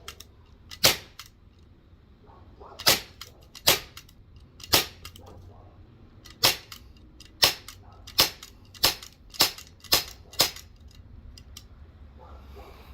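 CO2-powered Glock airsoft pistol firing about eleven single shots. The shots come one to two seconds apart at first, then quicker, about two a second, after about eight seconds.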